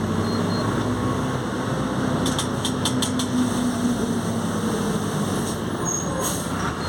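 Mercedes-Benz OF-1721 BlueTec5 bus engine running steadily at an even pitch, with a few light rattling clicks about two to three seconds in.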